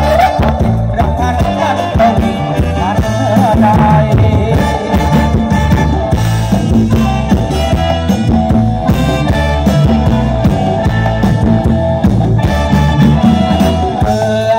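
Thai ramwong dance song played by a combo band: a steady drum beat and bass under a melody, with singing.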